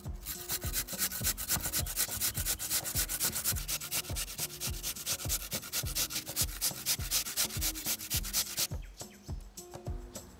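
Raw butternut squash being grated on a conical stainless-steel grater: a rapid run of even rasping strokes that stops about nine seconds in.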